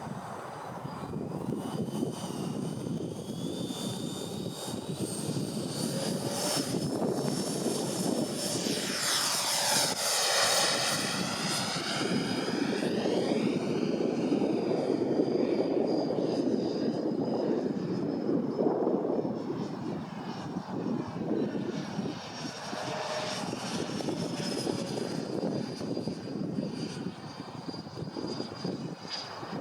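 Twin 80 mm nine-blade electric ducted fans of a Freewing MiG-29 model jet, a high whine over a rushing of air, with the pitch gliding up and down as the jet throttles and manoeuvres. It is loudest on a close pass about ten to sixteen seconds in.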